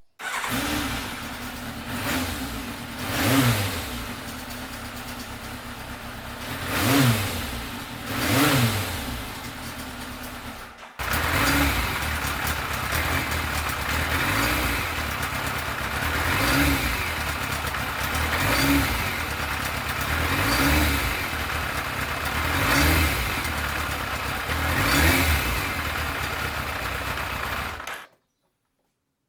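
Yamaha FZR1000 (3GM) inline-four engine running at idle with repeated throttle blips, the revs rising and falling about every two seconds in the second half. It cuts off suddenly near the end.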